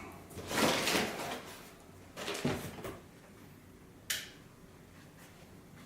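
Hands handling the head unit's wiring while reconnecting a power cable: two rustling scrapes, then a single sharp click about four seconds in.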